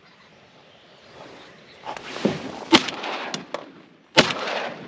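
Two shotgun shots at flying ducks, about a second and a half apart, the second ringing out with an echo over the water, with reeds rustling as the gun is swung; the shots miss.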